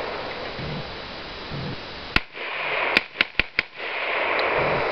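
Bushmaster AR-15 rifle firing: a single shot about two seconds in, then four quick shots in rapid fire, about five a second.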